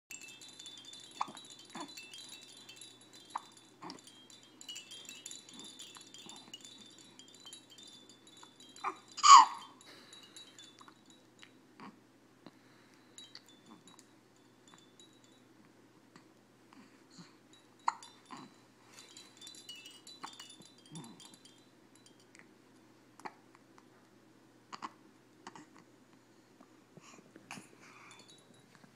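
One loud hiccup about nine seconds in, a sharp squeak that falls in pitch, among soft scattered clicks. Faint high ringing tones sit in the background through the first ten seconds.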